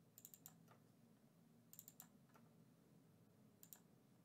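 Near silence broken by faint computer mouse clicks, coming in quick groups of two to four, like double-clicks.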